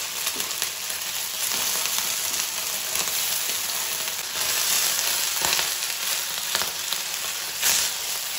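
Boiled potato balls sizzling in hot refined oil in a nonstick frying pan as they are lightly sautéed: a steady hiss with a few faint pops.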